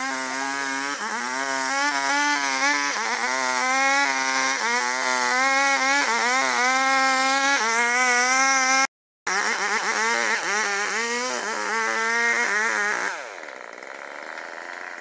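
Old two-stroke chainsaw running at high revs while cutting albasia (sengon) wood, its pitch dipping and recovering as the chain bites. The sound cuts out for a moment past the middle, and about two seconds before the end the engine falls back toward idle.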